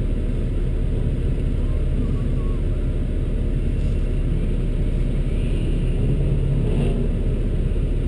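Car engine idling with a steady low rumble, heard from inside the cabin as the car creeps forward at low speed.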